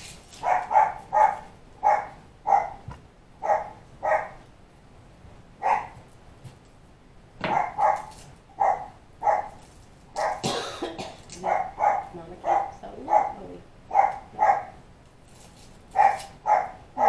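A puppy barking over and over in short, high yaps, often two or three in a row, wanting food from the kitchen counter. A few louder knocks come in among the barks.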